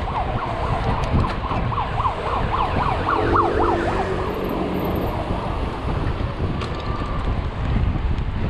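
A siren yelping, its pitch sweeping quickly up and down several times a second, dying away after about four seconds. Under it runs a steady rumble of wind on the microphone and tyres on pavement from the moving bike.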